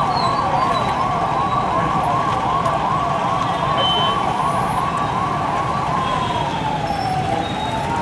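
Police van siren sounding in a fast yelp, about three rises and falls a second, then about six seconds in slowing into a long falling and rising wail.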